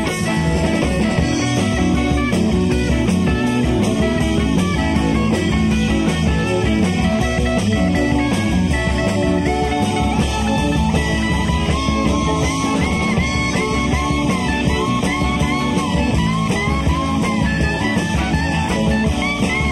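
Live southern rock band playing at full volume: electric guitars, bass and a steady drum beat. From about halfway through, a high lead line plays a run of short, repeated bending notes.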